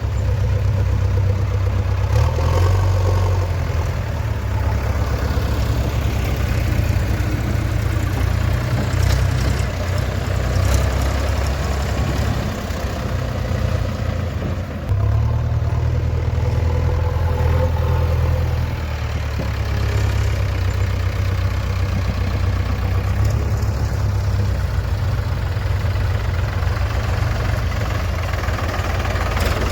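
Diesel engine of heavy farm or earthmoving machinery running with a steady low hum, its load rising and falling, most plainly about halfway through.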